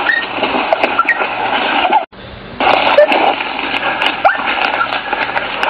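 German Shorthaired Pointers yelping and whining in short rising and falling cries over a loud, dense rushing noise, as the pack bays at an animal up a tree. The sound cuts out briefly about two seconds in.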